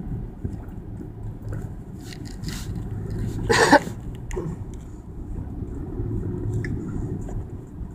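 Steady low rumble inside a moving car, with one short loud sound about three and a half seconds in.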